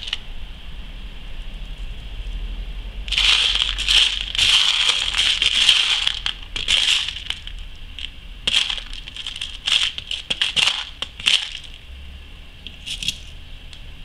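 Loose beads clattering and rattling in a plastic tub as fingers rummage through them: a dense spell of clatter from about three to seven seconds in, then scattered clicks.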